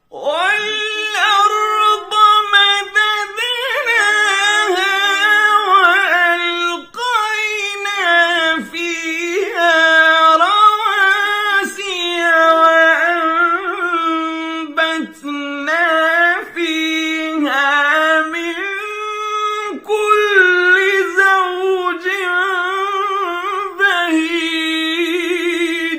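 A child's voice reciting the Quran in melodic, unaccompanied tajweed style, with long held, ornamented phrases separated by brief pauses for breath.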